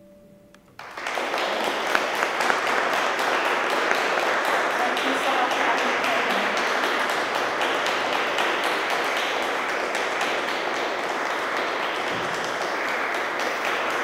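The last note of a hand-pumped harmonium fading away, then a small audience applauding steadily from about a second in.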